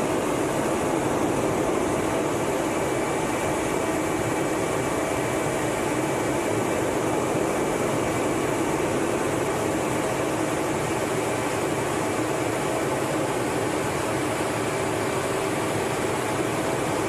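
Steady cockpit noise inside an F/A-18 Hornet in flight: an even rushing hum of engines and airflow, with a faint steady high tone over it.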